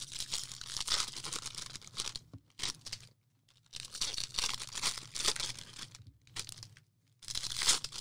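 Foil trading-card pack wrappers being torn open and crinkled by hand, in crackling stretches broken by a few brief pauses.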